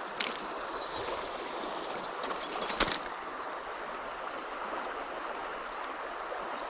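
Mountain stream flowing, a steady rush of water, with two short sharp clicks: one about a quarter of a second in and a louder one near three seconds.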